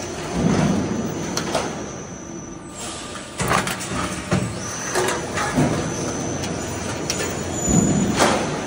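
Metal wall-cladding roll forming machine running, with a steady rumble and a thin high whine. Irregular sharp clanks and knocks of sheet-metal panels and the stacker's moving parts sound over it, about eight of them.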